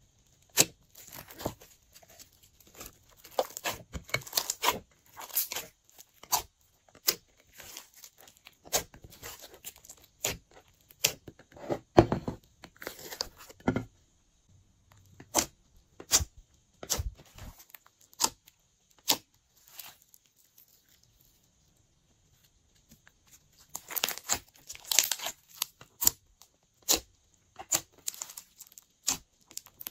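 Glossy slime being squished, stretched and folded by hand, giving irregular sharp clicking pops and crackles, with a few seconds of near quiet about two-thirds of the way through.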